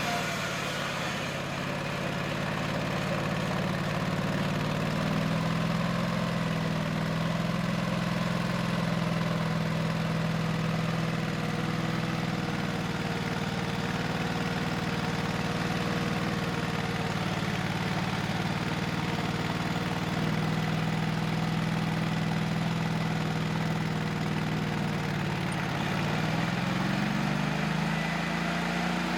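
Vintage bandsaw sawmill's engine running steadily, its pitch dipping a little and rising again near the end.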